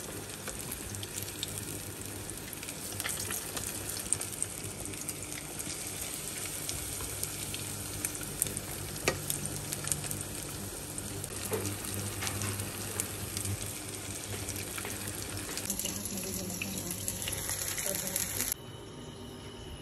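Breaded cutlets shallow-frying in hot oil in a nonstick pan: a steady sizzle with frequent sharp crackles and pops. It drops off abruptly shortly before the end.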